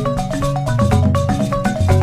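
Background music: a quick, bright run of marimba-like mallet notes over a steady bass line.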